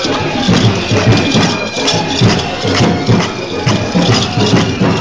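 Muharram procession percussion: a steady beat of low thumps, about three a second, with jingling rattles over it.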